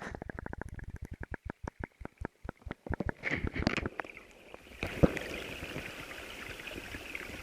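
A fishing reel clicking rapidly, roughly ten clicks a second, for about three seconds while a hooked steelhead is fought on a spinning rod. It is followed by the steady rush of river water.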